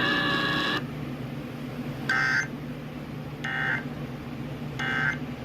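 Emergency Alert System end-of-message data bursts: three short, identical, screechy two-tone digital bursts about a second and a half apart, marking the end of the alert.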